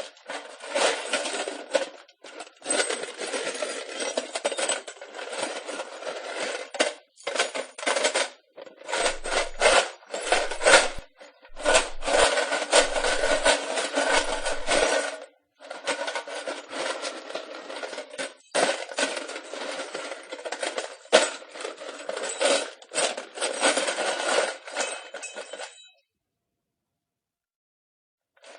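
Pieces of wood being handled: clattering, knocking and scraping against each other in a string of busy bursts with short pauses, stopping a few seconds before the end.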